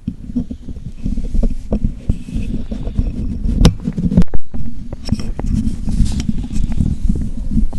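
Microphone pressed against a belly picking up loud, low internal rumbling and gurgling, broken by many irregular knocks and scrapes as it shifts on the skin.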